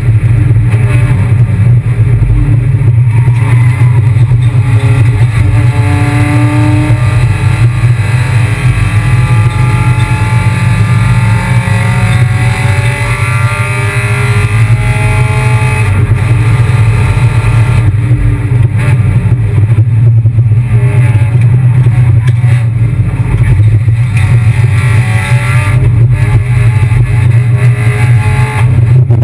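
Kia Picanto race car's engine driven hard on track, its pitch climbing for several seconds under acceleration and then dropping about halfway through, over a heavy steady low drone.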